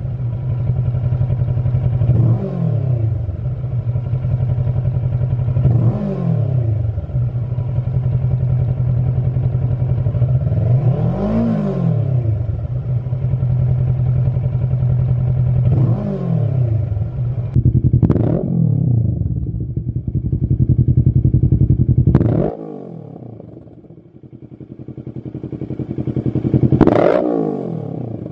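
Kawasaki Versys 650 parallel-twin engine idling on the stand with six short throttle blips that rise and fall. It sounds first through the standard silencer and then, near the end, through a Lextek GP8C aftermarket silencer.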